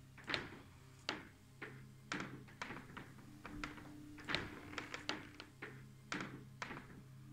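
Sharp knocks and taps, about two a second at uneven spacing, over low sustained tones that shift partway through.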